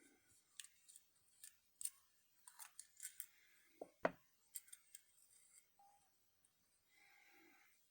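Faint, scattered clicks and taps of small objects being handled, a dozen or so irregular ticks with the loudest about four seconds in.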